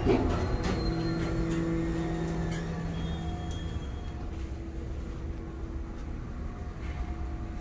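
Otis Series 1 hydraulic elevator arriving at a floor: a thump as the car stops, then a steady hum with a few clicks as the doors slide open.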